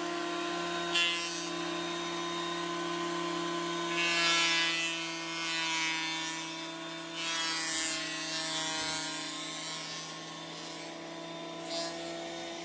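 Benchtop thickness planer running with a steady motor whine, planing a board down into a thin strip on a sled; the cutting noise swells several times as the wood passes under the knives.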